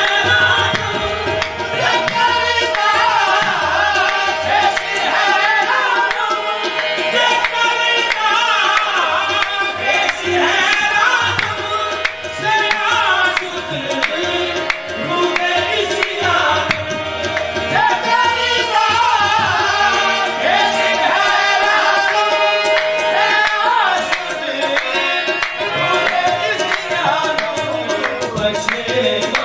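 Devotional qasida (naat) sung by a male voice with tabla accompaniment, over a steady held note.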